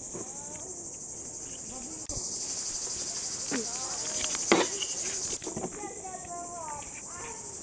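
A steady, high-pitched chorus of insects chirring without a break, with faint voices underneath and one sharp knock about halfway through.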